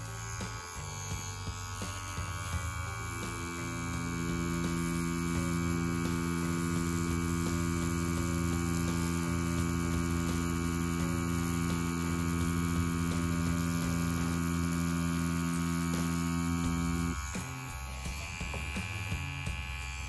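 CNC-WE wireless rotary tattoo machine running with a steady hum as its needle pulls lines into practice skin; the hum stops abruptly about seventeen seconds in.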